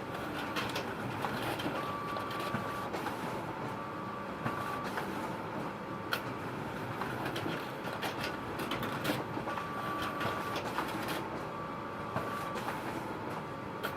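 Photocopier running: a steady mechanical whir with scattered clicks, and a faint high whine that comes and goes several times.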